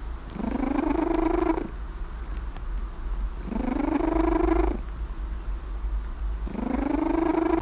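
A cat snoring: three drawn-out snores about three seconds apart, each with a clear pitch that rises at the start and then holds steady for over a second. A low steady hum lies underneath.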